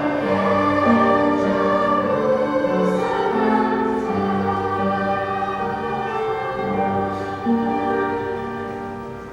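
Children's choir singing a song in sustained, held notes, the music dying away near the end.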